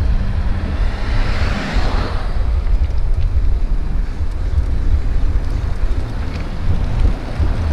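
Wind buffeting the microphone: a loud, steady low rumble, with a brief rushing swell about a second in.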